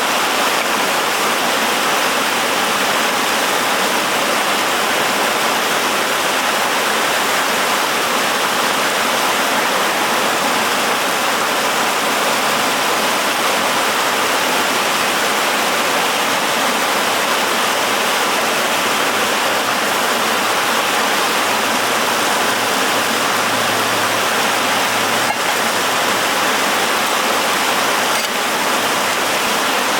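Rushing water in a mountain gorge, a steady loud wash of noise that does not change.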